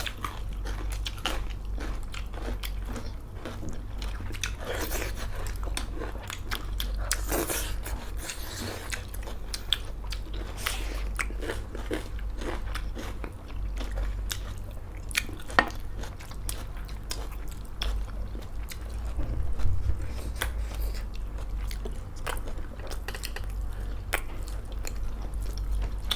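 Close-miked eating sounds of a meal of pork chilli with rice: biting, chewing and crunching, with many short wet clicks and smacks. A steady low hum runs underneath.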